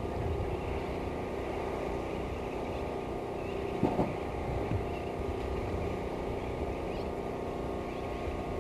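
A motor running with a steady hum and low rumble, with two short thumps about four seconds in.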